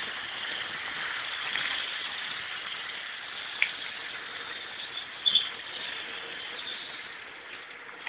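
Hornby model train running along the track: a steady whirring rush of motor and wheels that slowly fades. A sharp click comes about three and a half seconds in, and a couple more about five seconds in.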